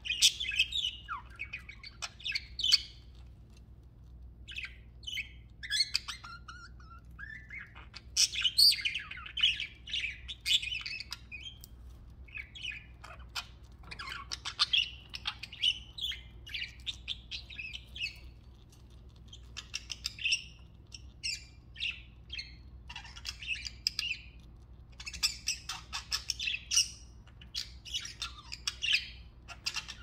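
Pet budgerigars chirping and chattering: bursts of high, fast-varying warbles and chirps with short pauses between them.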